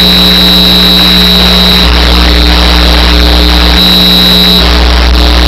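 CB radio receiver putting out a loud burst of static with a steady low hum and a high whistle: an incoming signal keyed up with no intelligible speech on it. The whistle drops out about two seconds in and returns briefly near four seconds.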